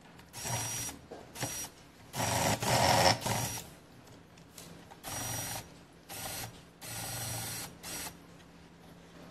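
Cordless electric screwdriver running in short bursts on the screws of a robot vacuum's plastic base, about seven whirring spurts. The longest and loudest comes about two to three and a half seconds in.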